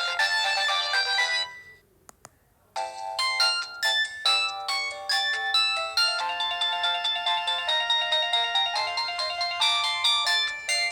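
Samsung GT-E1205T mobile phone playing its built-in polyphonic ringtones. One melody ends about a second and a half in, and after a short pause with a faint click, another ringtone of quick, bright notes starts near three seconds in.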